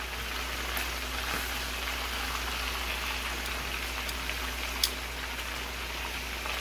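Chicken thighs shallow-frying in hot oil in a cast-iron skillet, a steady sizzle, with one sharp click a little under five seconds in.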